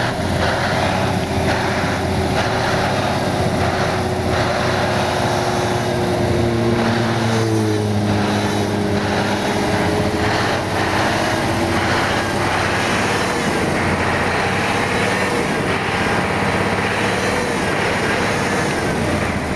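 Heavy truck's diesel engine running close by, a steady hum whose pitch shifts about seven seconds in.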